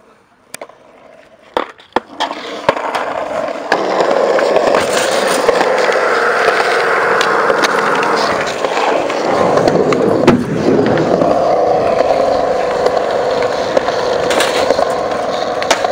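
Skateboard on smooth concrete: a few sharp clacks of the board in the first seconds, then the wheels rolling steadily, with a brief dip about ten seconds in and more clacks near the end.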